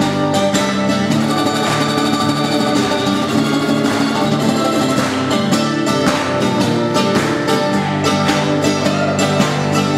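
Acoustic band music: mandolin and acoustic guitar being picked together.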